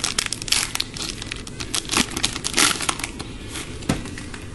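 Trading card pack wrapper crinkling and tearing as it is ripped open: a quick run of sharp crackles that thins out near the end.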